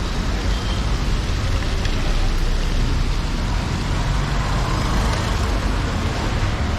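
Steady rain mixed with road traffic: an even hiss over a low, continuous rumble of passing vehicles.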